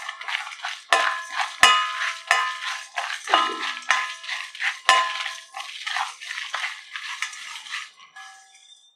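Wooden spatula stirring and scraping dry whole spices (coriander seeds, cumin, fennel, peppercorns, dry red chillies, cashews) around a metal kadai while they dry-roast on a low flame: seeds rattling and skittering, with sharp knocks that leave the pan ringing briefly. The stirring thins out and fades in the last second.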